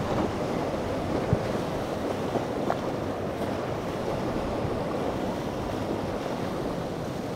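Steady rush of surf and churning water with wind buffeting the microphone, as a powerboat runs through rough chop throwing spray; a couple of brief knocks.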